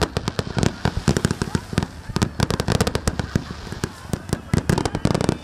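Fireworks display going off in a rapid, irregular barrage: many shell bursts and bangs in quick succession, with crackling between them.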